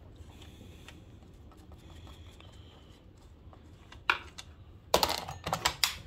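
Clacks and knocks of the side (clutch) cover being taken off a Husqvarna 268 chainsaw: faint small ticks at first, then one sharp knock about four seconds in and a quick cluster of clatters about a second later.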